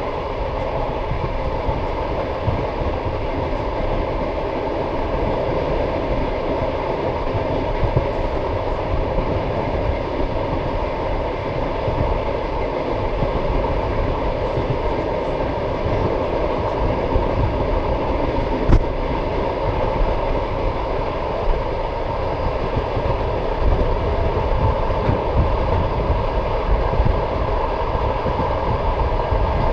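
Passenger train carriage running along the track: the steady deep rumble and clatter of its wheels on the rails, with one sharp click about two-thirds of the way through.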